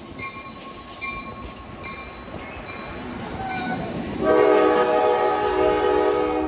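Stainless-steel Comet passenger cars of an Amtrak San Joaquin train rolling past on departure, a steady rumble with faint wheel squeal. About four seconds in, a train's air horn sounds one loud long blast of several tones at once.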